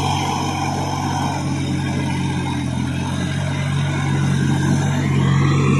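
Solis 5220 tractor's diesel engine running steadily under load while it drives a rotavator through hard, wet paddy soil. The note holds steady and grows gradually louder as the tractor comes closer.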